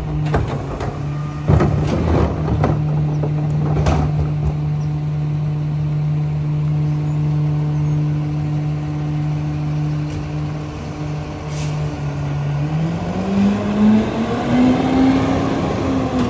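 Pac-Tech rear loader garbage truck: a trash cart knocks several times against the cart tipper and hopper in the first few seconds over the truck's steady engine. About twelve seconds in, the engine revs up in a rising pitch and holds there as the hydraulic packer blade cycles down into the hopper.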